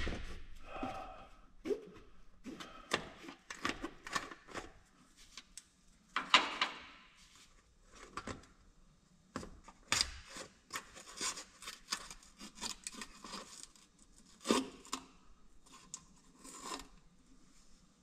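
Hands working at a plastic fluid reservoir and its cap under a truck's hood: irregular clicks, scrapes and rubs, the loudest at about six, ten and fourteen and a half seconds in.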